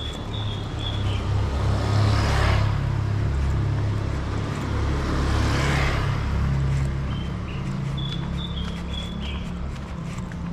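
Street traffic: two vehicles pass close by, one about two seconds in and another about six seconds in, over a steady low engine hum.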